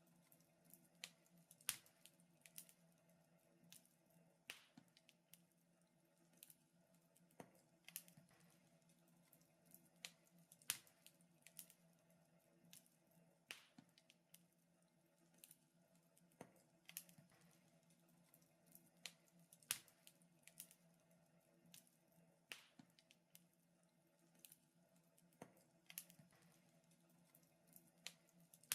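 Wood fire in a fireplace crackling quietly, with irregular sharp pops and snaps over a faint steady hum.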